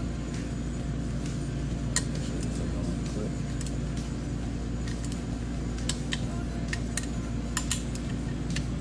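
Scattered light metallic clicks and clinks of hand tools against engine parts, a few seconds apart, over a steady low hum.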